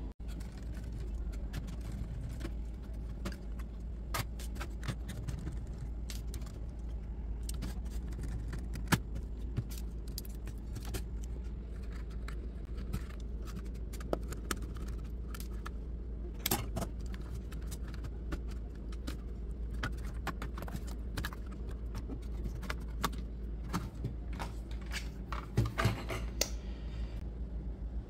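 Irregular clicks and light clinks of small metal and plastic parts and tools handled while a laptop is taken apart to remove its motherboard, over a steady low hum.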